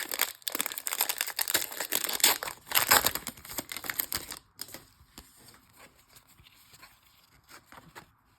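Wrapper of a trading-card pack crinkling and tearing as it is ripped open, with many sharp crackles for about four and a half seconds. It then drops to faint, scattered rustles and ticks of cards being handled.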